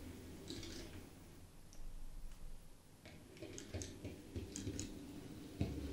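N gauge Class 68 model locomotive running on track with a quiet motor hum and a repeated sharp click, roughly once a second: the sign of a split gear in its drive.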